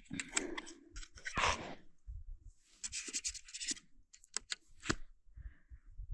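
Scattered sharp clicks and rustling from small plastic gear being handled, with a quick run of clicks about four seconds in.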